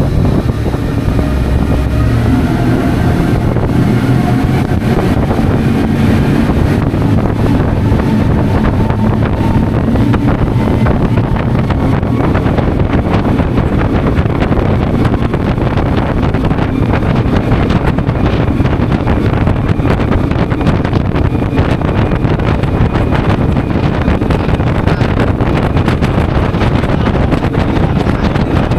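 Twin Honda 350 hp V8 outboard engines running steadily at speed, driving a 51-foot catamaran speedboat, with wind on the microphone and water rushing past the hull.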